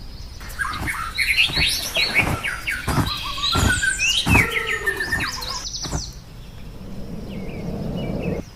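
A bird chirping and twittering in quick runs of short calls, with several sharp knocks mixed in; the calls thin out after about six seconds.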